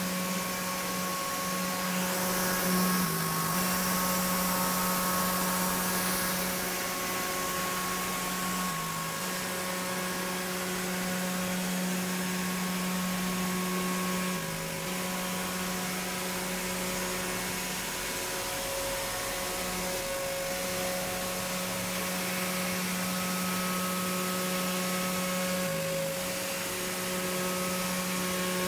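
Contour edge-banding machine running: a steady motor hum over a hiss of air or dust extraction, its pitch wavering briefly about every six seconds.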